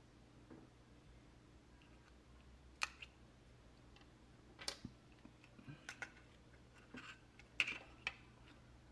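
Scattered light clicks and taps as a plastic pry tool unclips the screen cables of an iPod nano and the tool and iPod parts are set down on a desk, about nine in all, the loudest near the end.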